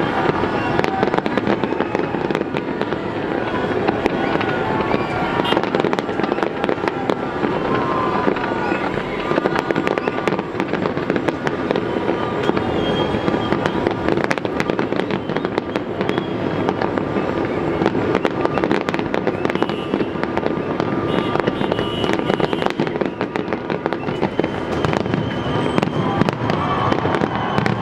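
Fireworks display going off in a continuous dense barrage of rapid bangs and crackles, with no break, over music.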